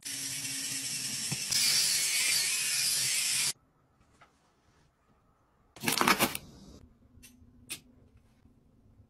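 Cardboard box pushed across a stone floor: a steady scraping rub for about three and a half seconds that grows brighter halfway through. After a pause comes a short loud burst about six seconds in, then a couple of sharp clicks.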